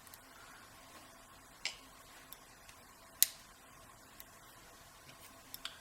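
A few sharp, small clicks and taps, the loudest about three seconds in and a quick little cluster near the end: the pins and parts of a disassembled Schlage Everest lock cylinder being handled on a hard surface.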